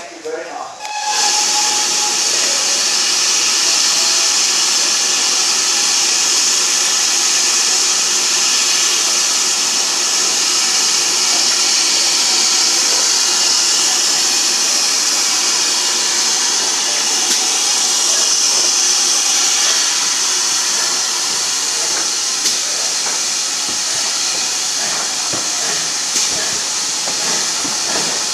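Steam locomotive's escaping steam hissing loudly and steadily, starting about a second in, as steam drifts past the moving train.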